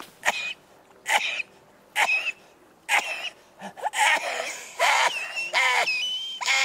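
A man's wordless cries: sharp, squealing gasps about once a second, then longer, wavering wails from about four seconds in.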